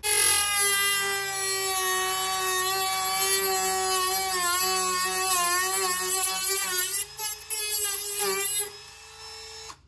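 Dremel rotary tool running at high speed, shaving off a small corner of the panel around the live well controls. Its steady whine wavers in pitch as the bit bites into the material, and it winds down and stops near the end.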